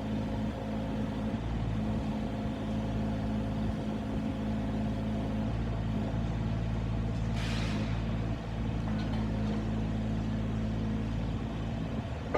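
A JCB 8008 micro excavator's small diesel engine idling steadily, with a short hiss about seven seconds in.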